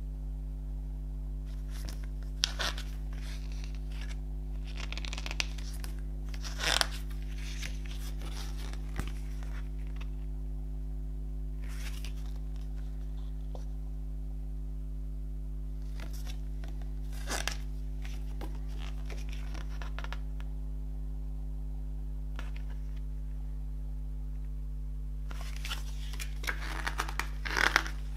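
Paper pages of a CD lyrics booklet being handled and turned: short rustles every few seconds, and a longer run of rustling and crinkling near the end as the booklet is opened out, over a steady low hum.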